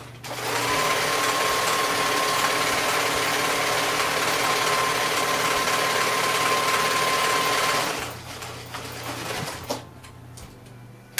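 Electric sewing machine stitching a seam at a steady speed with a constant whine, running for about seven and a half seconds and then stopping; a few light clicks follow near the end.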